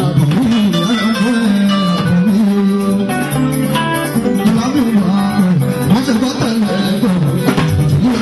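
Music with a singing voice and a plucked guitar, at a steady, loud level.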